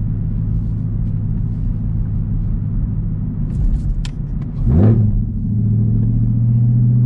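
Camaro ZL1's supercharged V8 with an H-pipe catback exhaust, heard from inside the cabin as a deep, steady drone while cruising. About four and a half seconds in, the revs dip, then jump sharply up and louder, and the engine pulls on with its pitch slowly rising near the end.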